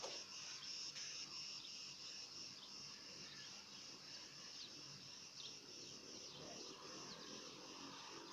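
Faint, steady outdoor chorus of insects, a continuous high-pitched buzzing, with a few short falling chirps over it.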